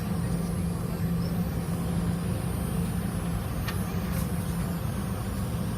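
Steady low drone of a Boeing 717 airliner cabin, with a constant low hum under an even rush of noise.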